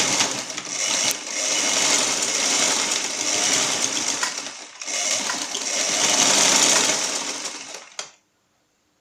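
Household sewing machine driven by a newly fitted electric motor and belt, stitching fast. It eases briefly about halfway and stops near the end.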